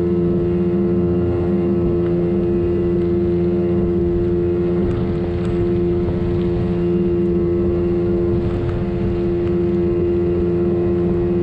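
Boat motor running at a steady, unchanging speed, a constant drone.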